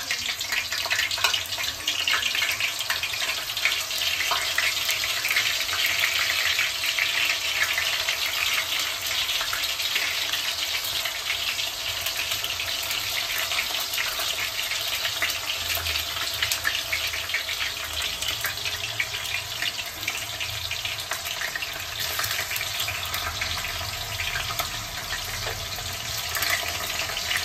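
Banana slices deep-frying in hot oil in a kadai: a steady, dense sizzle full of fine crackles, loudest in the first several seconds.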